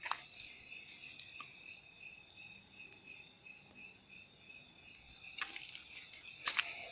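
Chorus of crickets and other insects trilling steadily in several high, overlapping pitches, with a few soft clicks, mostly near the end.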